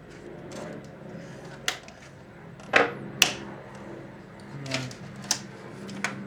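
Sharp clicks and knocks of plastic parts and tools being handled while a VCR's casing and boards are taken apart, six in all, the loudest pair about three seconds in.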